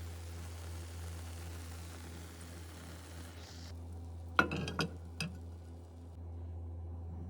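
Kitchen cooking sounds: a steady sizzling hiss that cuts off suddenly, then three quick clinks of cookware about four to five seconds in, over a low steady hum.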